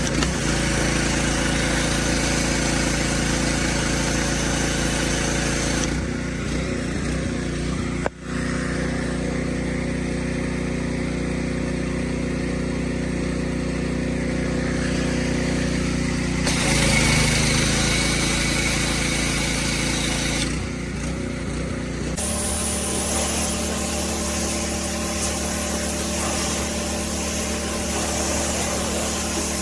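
Pressure washer running with a steady, even hum, its tone changing abruptly a few times.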